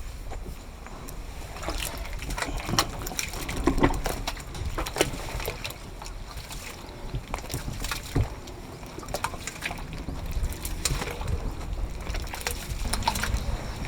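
Hands mixing a thick slurry of fresh cow dung and water in a biogas digester's inlet pit, with irregular wet splashes.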